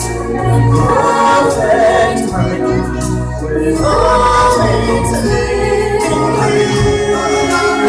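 Stage-show music: a choir of voices singing over an instrumental accompaniment with a steady bass.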